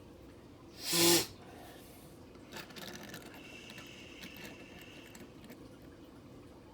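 Plastic toy pieces being handled and moved, with a short loud burst about a second in followed by light clicks and rubbing.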